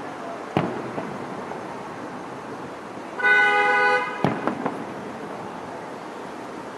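Distant aerial firework shells bursting: one sharp bang about half a second in and a quick cluster of three around four seconds in, each with a short echoing tail. A horn honks once for under a second just before the cluster, the loudest sound here.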